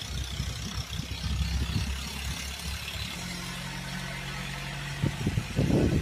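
Small homemade table fan running close by, its little electric motor humming steadily, with the hum shifting pitch about halfway through, and its blades' airflow rumbling on the microphone. Louder low rumbling bumps come near the end.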